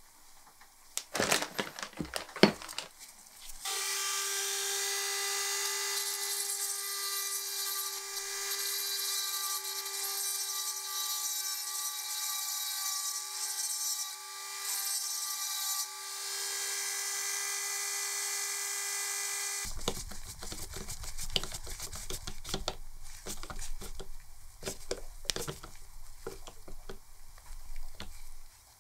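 A few sharp handling clicks, then a small handheld electric drill runs with a steady high whine for about sixteen seconds, dipping briefly partway through, while drilling a screw hole for the brass nameplate on the lamp housing. After it stops, a screwdriver turns the small brass screws in with irregular scraping and clicking.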